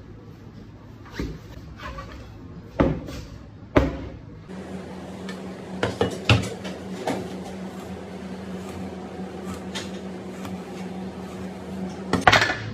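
Large curved knife chopping through a big fish on a plastic cutting board: a few sharp knocks as the blade strikes through to the board, the loudest near the end, over a steady low hum.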